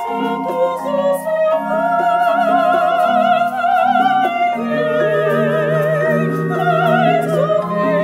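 Two women singing operatically with wide vibrato, their lines overlapping, over held low notes from a small chamber ensemble.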